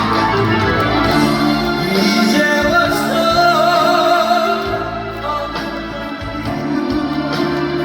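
Live trot song with full band backing played through stage speakers; a wavering melody line stands out in the middle.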